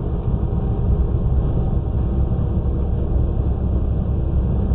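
Steady low rumble of road and engine noise inside a vehicle cruising at highway speed, about 65 mph.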